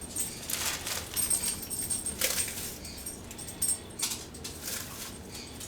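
Club crackers being crushed by hand into a bowl: irregular dry crunching and crackling, thicker in the first half.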